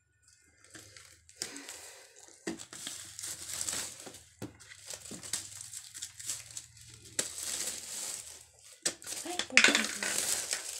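Crinkling of plastic wrapping with a string of sharp clicks and knocks from the plastic and metal parts of a folding laptop table, as its leg joint and knob are handled.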